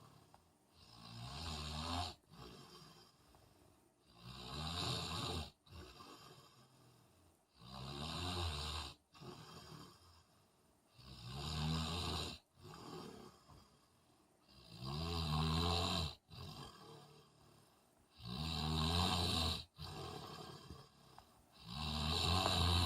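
A man snoring in his sleep, a long snore about every three and a half seconds, seven in all, with quieter breathing between.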